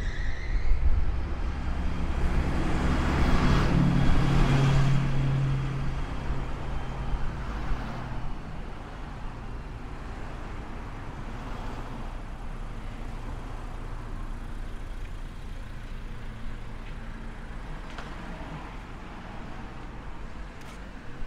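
A motor vehicle passes close by in the street, its engine hum swelling and loudest about four seconds in, then fading into steady traffic noise.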